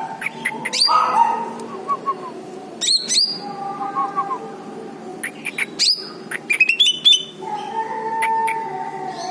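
Cucak ijo (green leafbird) calling in clusters of sharp, quickly falling chirps, repeated several times, over steady held lower notes.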